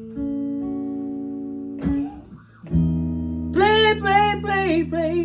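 Guitar playing a slow blues ballad: a chord rings out for about two seconds, a new chord is struck just before the three-second mark, and a bending melodic line rises over it near the end.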